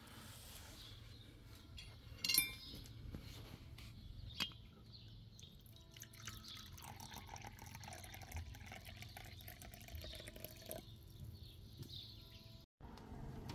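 Tea poured from a porcelain teapot into a china cup, a quiet trickle of liquid. There are two short sharp clicks before it, about two and four and a half seconds in.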